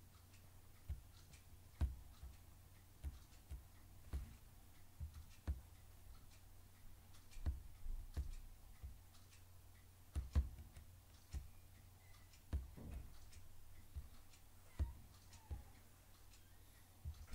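Computer mouse clicks, sharp and irregular at about one a second, over a faint steady low hum.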